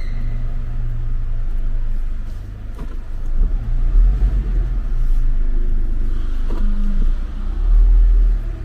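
Car on the move: a low rumble of engine and road that swells louder twice.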